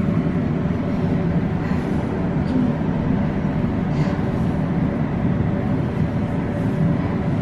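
Glass-walled passenger lift in motion: a steady mechanical rumble with a constant hum running through it.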